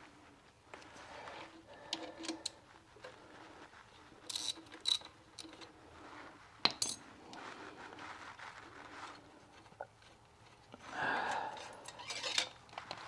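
Scattered metallic clinks and clicks of hand tools and loosened bolts during work on an electric motor's rear plate, with one sharp click about halfway through and a short scraping rustle near the end.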